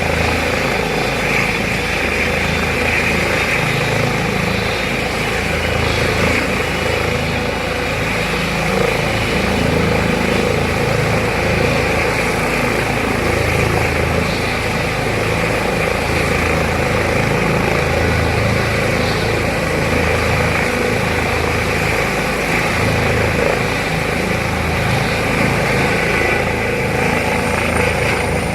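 Medical helicopter's rotor and turbine engine running loud and steady, with the low rotor beat.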